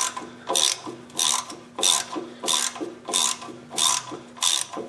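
3/8-inch ratchet on an extension clicking in steady strokes, about eight in a row, each stroke a quick run of pawl clicks, as it backs out the rear wheel hub's 16 mm mounting bolts, which have come loose.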